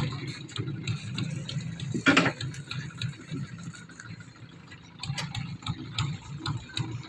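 Scattered light clicks and knocks of hands and tools working on steel formwork and rebar, with one louder knock about two seconds in, over a steady low engine hum.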